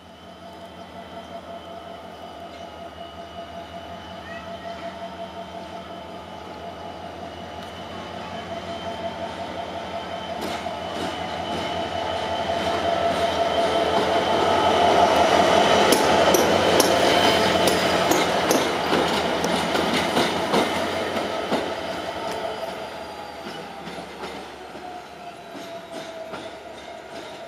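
GM-engined class 65 diesel-electric locomotive running light, its engine sound holding a steady whine as it draws near and passes at its loudest about fifteen to eighteen seconds in. Its wheels click sharply over the rail joints as it goes by, and it fades as it moves away.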